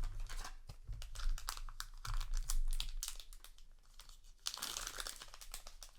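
A trading-card booster pack wrapper being crinkled and torn open, with many sharp crackles and a longer rip about four and a half seconds in.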